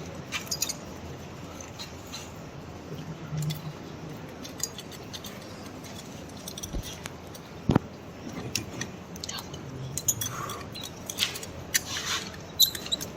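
Scattered sharp clicks and light metallic clinks of surgical instruments being handled during orthopedic wiring of a fracture, irregularly spaced over a low steady background.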